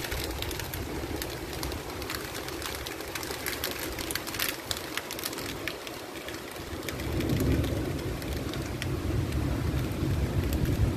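Heavy rain falling: a steady hiss with many fine drop ticks. A low rumble grows louder about seven seconds in.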